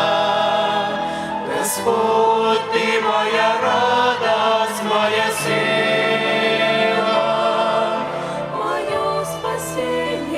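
Church hymn performance: a choir singing slow, held lines with a violin ensemble accompanying.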